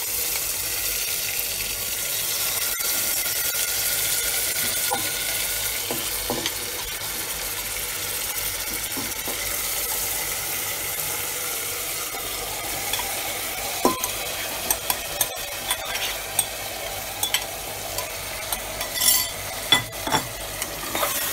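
Marinated mutton sizzling and frying as it goes into hot oil in a pressure cooker, a steady hiss throughout. In the second half, sharp clinks and knocks from a steel spoon scraping the marinade out of a steel bowl come in over the sizzle.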